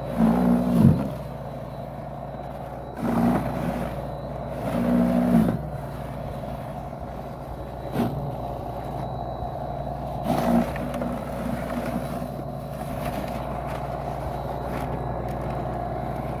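Snapper XD 82-volt brushless battery snow broom running steadily while it is pushed through snow, with several short, louder surges as it clears snow.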